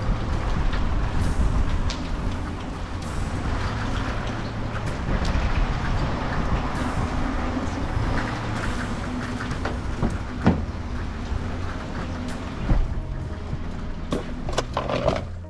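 Steady low rumble and hiss of outdoor noise on a wet street. Near the end come a few sharp clicks and knocks as a car door is opened and someone gets into the car.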